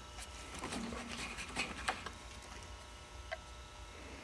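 Radiator cap being twisted off the filler neck by hand: a few faint, short clicks and scrapes.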